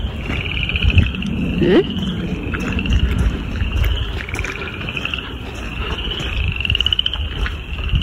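A loud chorus of frogs calling: rising, rattling trills, each about a second long, follow one another every second or so, over a low rumble of handling noise.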